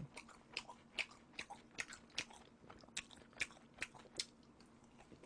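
A person chewing spicy fried chicken: a run of faint crunching clicks, about two to three a second, that thins out about four seconds in.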